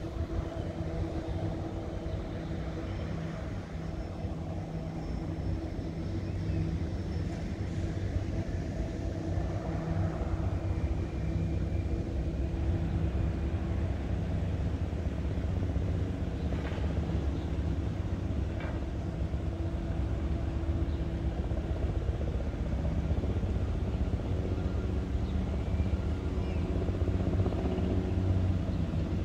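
Steady low drone of a diesel locomotive hauling an EXO bilevel commuter train, holding an even pitch over a low rumble that grows a little louder several seconds in.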